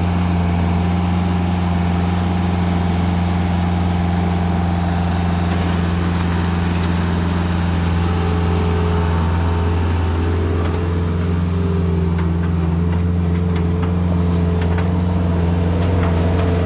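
Kubota diesel engine of a New Holland L553 skid steer loader running steadily, with a slight change in its tone about halfway through.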